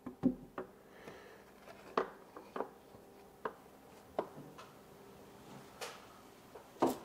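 Valve cover of a 7.3 Powerstroke diesel being worked loose and lifted out of its seat on the cylinder head: a string of separate light knocks and clunks, about eight over several seconds.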